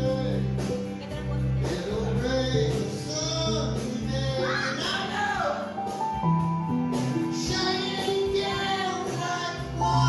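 Music with a singing voice over sustained bass notes.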